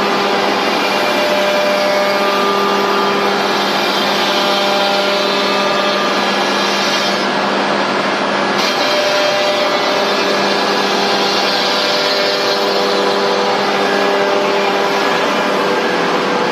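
CNC router spindle running and milling a wave-pattern texture into an MDF board, a steady loud whine with a hiss of cutting over it. The hiss drops out briefly about seven seconds in and comes back about a second and a half later.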